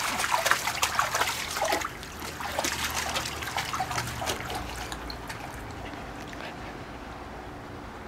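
Water splashing and sloshing as a husky wades through a shallow pool, busiest in the first couple of seconds, dying away to a faint steady trickle after about five seconds.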